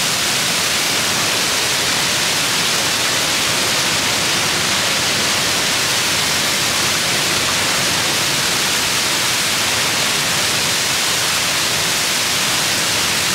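Niagara's Horseshoe Falls plunging past a tunnel portal just behind the falling sheet of water: a steady, loud, unbroken rush of falling water, strongest in its hiss.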